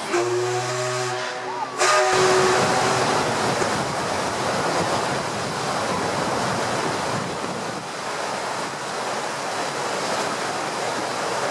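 Paddle steamer Waverley's paddle wheels churning the water into a foaming wake as she pulls away, a steady rushing noise mixed with wind on the microphone. It is preceded by a brief steady pitched tone that cuts off abruptly about two seconds in.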